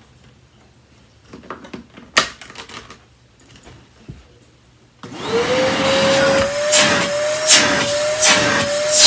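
A few handling clicks, one sharp click about two seconds in, then a canister vacuum cleaner switched on about five seconds in: the motor spins up to a steady whine, and the suction rush swells and fades in a regular rhythm.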